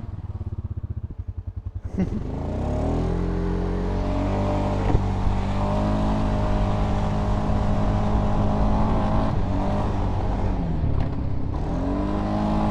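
Polaris Sportsman 570 ATV's single-cylinder engine heard from the rider's seat on a dirt trail, pulsing at low revs at first. About two seconds in the throttle opens, the revs climb and then hold steady. Near the end the revs drop briefly and rise again, with a single sharp knock about five seconds in.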